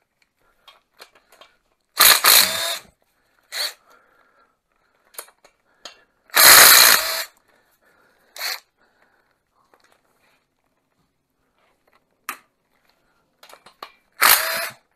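A cordless power tool running in short bursts as it spins the 15 mm cylinder-head nuts off a VW 1600 dual-port air-cooled engine. There are about six bursts, the longest and loudest lasting about a second near the middle.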